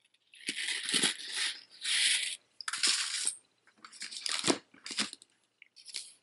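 Metal chain jewelry jingling and rustling in several short bursts with a few sharp clicks as it is handled: a rose-gold-tone hand chain with a ring, pendant and chain tassels.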